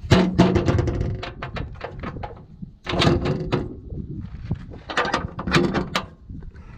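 A hinged sheet-steel compartment panel on a military truck being unlatched and worked open: metallic clanks and rattles in three bursts, the loudest at the start.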